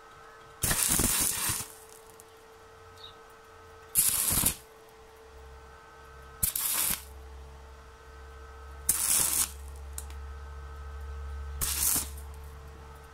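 Stick-welding arc from a small inverter welder with a 1.6 mm electrode at 40 A, struck five times in short bursts of about half a second to a second each, tack-welding 0.7 mm galvanized steel sheet. A steady faint hum runs between the tacks.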